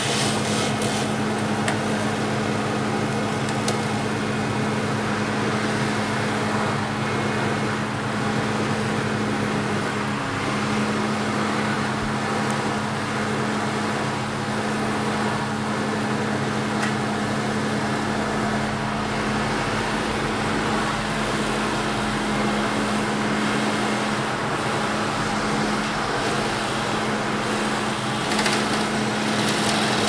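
Bucket truck's engine running steadily to power the raised boom, a constant mechanical hum. A car passes at the start and another near the end.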